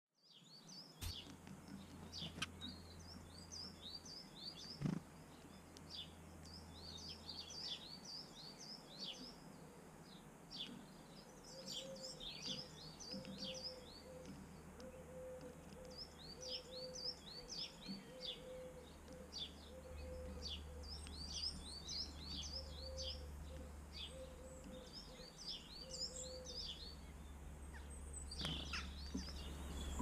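Small garden songbirds singing: high, rapid twittering phrases a second or two long, repeated over and over. Through the middle stretch a lower note repeats at an even pace beneath them.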